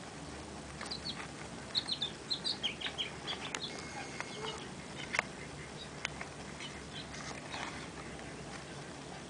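Baby sulcata tortoise clambering at the rim of a plastic tub, its claws scraping and clicking on the plastic. A quick run of short high chirps comes about one to three seconds in.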